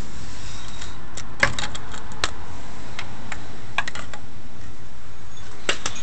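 A scatter of light clicks and clinks in small clusters, about a second and a half in, around four seconds, and again near the end, over a steady hiss.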